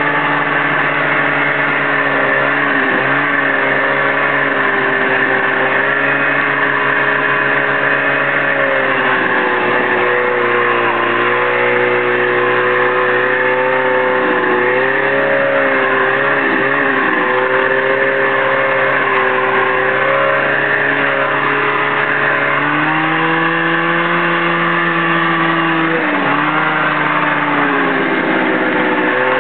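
A 1978 Arctic Cat Jag snowmobile's two-stroke engine runs under way, its pitch wavering with the throttle. The pitch drops to a lower speed about three-quarters of the way through and dips briefly twice near the end. The owner says the engine was not running at full power.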